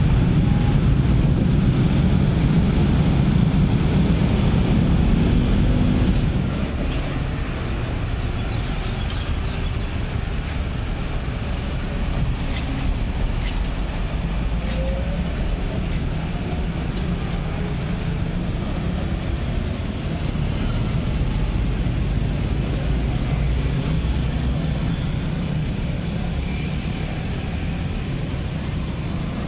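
Road traffic crossing a railway level crossing: a bunch of motorcycles and cars running over the tracks. It is loudest for about the first six seconds, then settles to a steadier, quieter traffic rumble.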